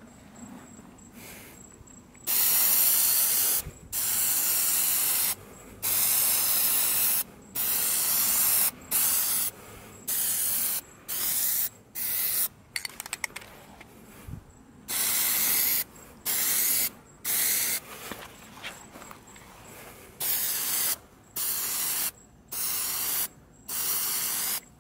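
Aerosol can of Plasti Dip rubberized coating spraying in more than a dozen short hissing bursts, each half a second to a second and a half long, with short pauses between and a longer pause midway. It is laying on a light first coat.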